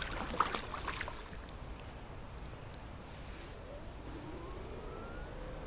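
Electric kayak fin motor (e-fin) starting up: a whine rising in pitch about four seconds in, then settling into a steady hum. A few light knocks come in the first second.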